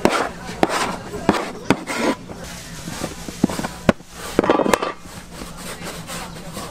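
Irregular sharp knocks and clatter from work at a twisted-doughnut stall, with voices in the background.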